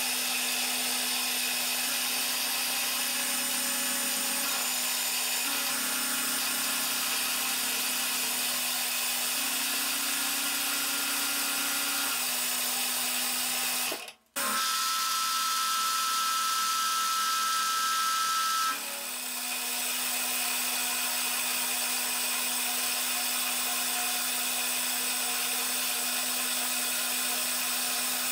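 Milling machine running with an end mill cutting a recess into a block of aluminium in the vise: a steady motor hum under a hissing cutting noise that shifts as the cut goes on. The sound breaks off very briefly about halfway through, and it gets a little lighter a few seconds later.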